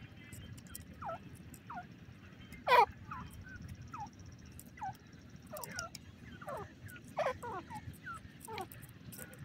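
Female grey francolin calling in a string of short, down-slurred notes, one or two a second, with a louder call about three seconds in and another about seven seconds in.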